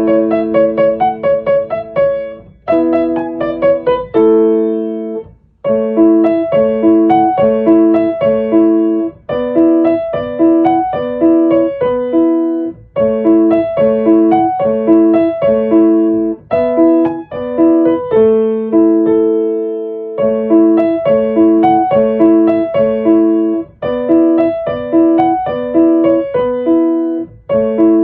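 Solo piano playing a gentle instrumental piece: chords repeated in a steady rhythm of about two a second, with a few longer held chords along the way.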